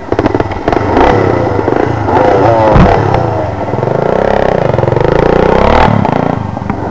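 Kawasaki KMX 125 two-stroke single-cylinder dirt bike engine revving up and down several times, with clattering knocks in the first second.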